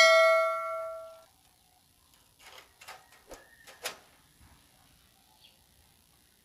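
A metal object is struck and rings out with a clear clang that fades over about a second. A few faint knocks and taps follow between about two and a half and four seconds in.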